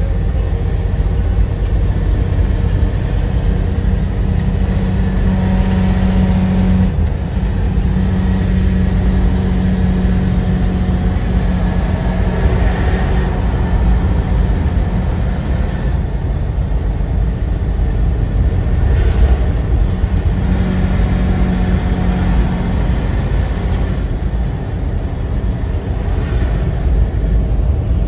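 Tractor-trailer truck driving at road speed: a steady low engine drone and road rumble, with a humming tone that stands out for several seconds twice.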